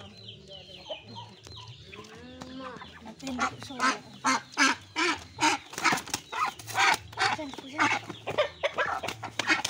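Poultry squawking in a rapid series of short calls, about one or two a second, starting about three seconds in.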